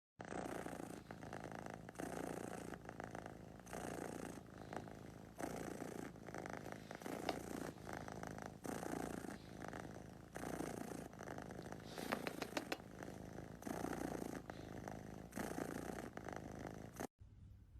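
Domestic cat purring close up, swelling and fading in regular waves with each breath, a bit under one a second.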